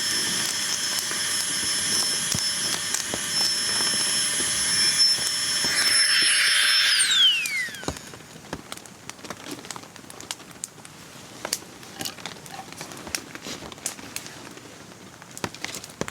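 A small motor whining steadily, then winding down in pitch and stopping about seven and a half seconds in. After it stops, scattered light ticks and patter remain.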